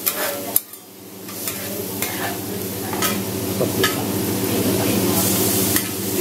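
Cabbage and meat sizzling on a flat steel teppan griddle while two metal spatulas stir and flip them, with sharp clacks and scrapes of the spatulas on the steel about once a second. A steady low hum runs underneath, and the sizzle grows louder near the end.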